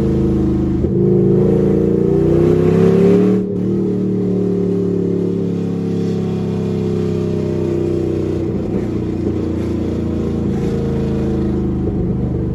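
5th-gen Camaro SS's 6.2-litre V8, fitted with long-tube headers but without the rest of its exhaust, running loud under acceleration. The revs climb for about two seconds, then drop suddenly about three and a half seconds in as the throttle is lifted, and the engine runs on steadily.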